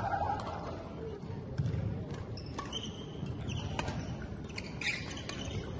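Badminton rally: repeated sharp strikes of rackets on the shuttlecock, with sports shoes squeaking on the wooden court floor and footsteps thudding on it.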